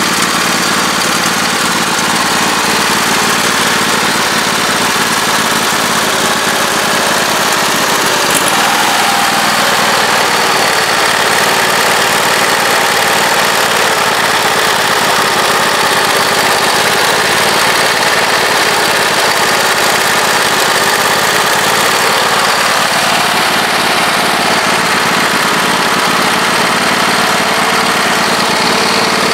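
Husqvarna YTH2448 riding mower's engine running steadily at a low speed, its pitch shifting slightly about eight seconds in.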